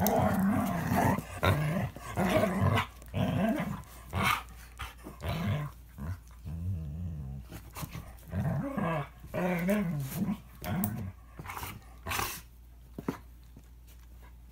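Dogs growling in repeated short bouts as a toy Manchester terrier and a standard poodle square off, with a sharp burst about twelve seconds in before it dies down.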